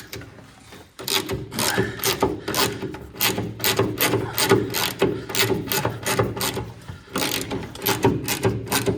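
Kinchrome socket ratchet clicking in quick runs of strokes as a front hanger bolt is undone, starting about a second in.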